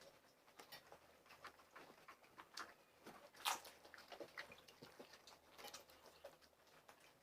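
Faint, irregular crunching and chewing as crisp pani puri shells are bitten and eaten, with one sharper crunch about three and a half seconds in.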